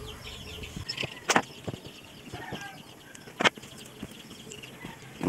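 Chickens clucking and calling in the background. Two sharp clicks, one about a second in and one about three and a half seconds in, come from wire leads being handled on a rice cooker's thermal fuse.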